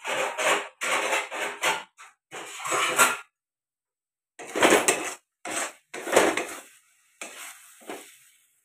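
Metal spatula scraping and scooping thick masala paste against the inside of a metal kadai: a quick run of scrapes, a pause of about a second, then several more, as surplus cooked masala is scooped out of the pan.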